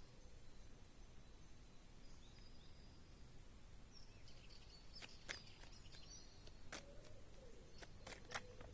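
Near silence with faint bird chirps in the background and a few short soft clicks in the second half.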